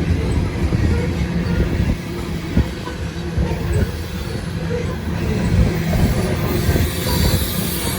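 A heavily loaded grain train's freight cars rolling past: a steady rumble with a constant knocking clatter of steel wheels on the rails.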